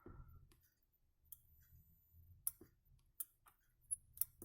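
Faint, scattered small clicks, about five over a few seconds, from pushing a through-hole LED out of a mechanical keyboard's circuit board to salvage it.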